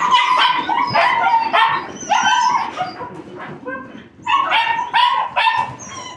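A litter of puppies yipping and barking in many short, high-pitched, overlapping calls as they chase a flirt-pole lure in play. The calls thin out about three seconds in, then a fresh round of yips starts about a second later.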